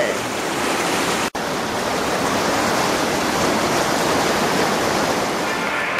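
Shallow river rushing over limestone ledges and rapids, a steady full rushing noise, with a momentary break a little over a second in.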